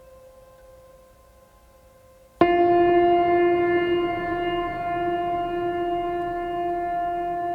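Ambient music: faint held tones, then about two and a half seconds in a loud sustained drone-like note enters suddenly and holds, fading slowly.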